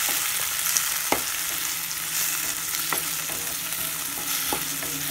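Shallots, tomato and green chillies sizzling in oil in a steel kadai as they are sautéed and stirred with a wooden spatula. The spatula knocks against the pan a few times.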